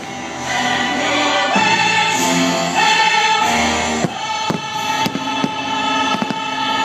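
Fireworks show soundtrack of sustained choir-like singing with orchestral music, with several sharp firework bangs in the second half.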